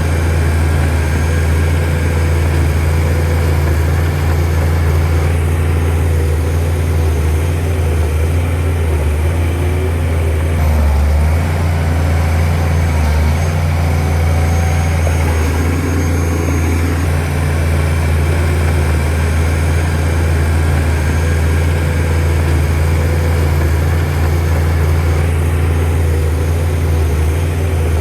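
Shantui DH17C2 bulldozer's diesel engine running steadily with a deep low hum.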